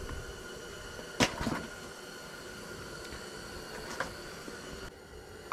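A sharp knock about a second in, a softer knock just after and a light click near four seconds, from a fish and fishing gear being handled. Under them runs a steady hiss with a faint hum.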